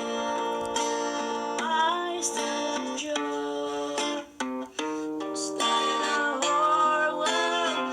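Music played on a plucked string instrument: chords and held notes, with a wavering, bending melody line twice and a brief break a little past the middle.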